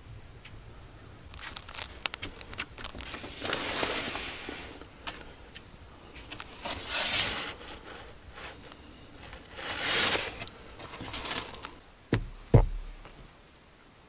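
Rustling and scraping handling noise in three long swishes about three seconds apart, with scattered clicks between them, then two heavy thumps near the end.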